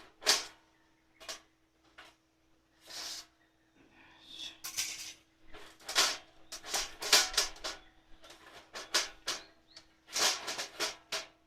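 Irregular scrapes, rustles and knocks from handling and cleaning a sooty steel wood-burning stove box, a dozen or so separate short bursts with small gaps between them.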